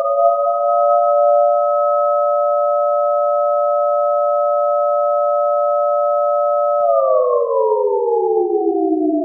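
Federal Signal Thunderbolt outdoor warning siren being tested: a chord of steady tones held at full pitch, which begins winding down about seven seconds in.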